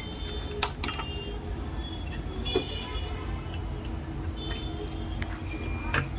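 Steady low rumble of background road traffic with brief high horn toots, and a few sharp clicks.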